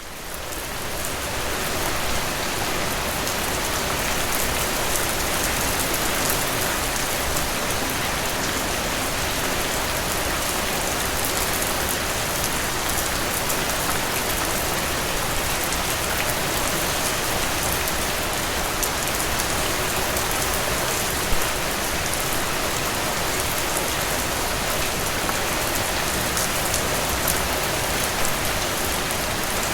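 Steady rain falling on a surface, fading in from silence over the first two seconds and then holding even, with one slightly louder drop about two-thirds of the way through.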